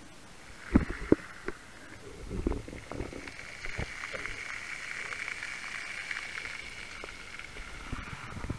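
Underwater sound through a camera housing: a few sharp knocks in the first three seconds, the loudest about a second in, as the speared sea bass and speargun are handled. Under them a steady whine of a boat engine heard through the water swells from about a second and a half in and fades near the end.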